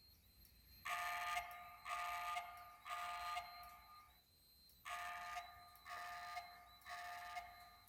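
Fire alarm speaker sounding an evacuation tone in the temporal-three pattern: three half-second beeps, a pause, then three more, marking the alarm between voice-evacuation messages. A faint steady high-pitched whine runs underneath.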